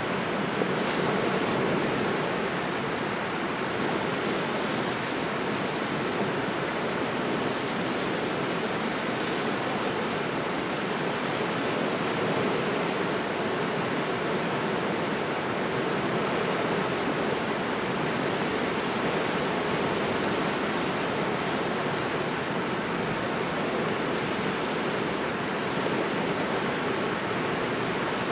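Small waves washing steadily on a shore, mixed with cold wind: a continuous, even rush of water and wind noise with no single breaking wave standing out.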